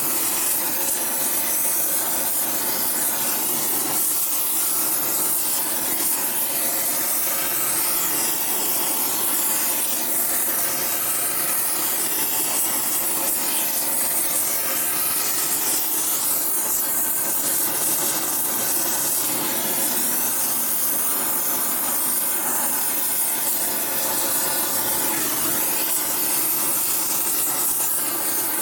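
Gas torch flame hissing steadily as it is played over an aluminum panhead cylinder head, heating it.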